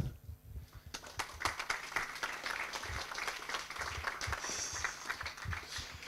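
Audience applauding, picking up about a second in and then going on steadily.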